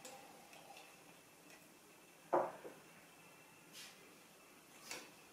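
Plastic Lego pieces being handled on a countertop: one sharp clack a little over two seconds in, a smaller one right after, and a couple of faint clicks later.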